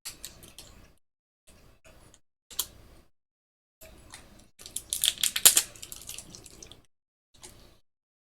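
Small clicks and taps from tools and parts being handled at a workbench, in scattered short bursts with a busier, louder cluster about five seconds in.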